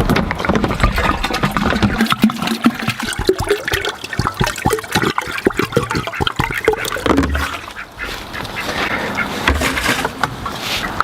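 Ducks quacking.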